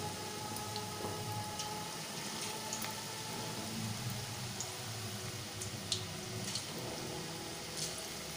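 Palak pakoras (spinach and gram-flour batter fritters) deep-frying in hot oil: a steady sizzle, with a few sharper pops in the second half.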